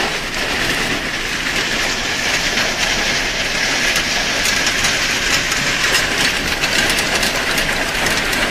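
Heavy hail pelting down on pavement and grass: a loud, steady clatter of countless small impacts, with sharper single ticks standing out in the last couple of seconds.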